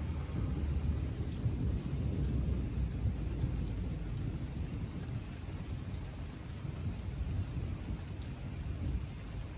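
Thunder rolling in a long low rumble that swells about half a second in and slowly eases, over the steady hiss of summer rain.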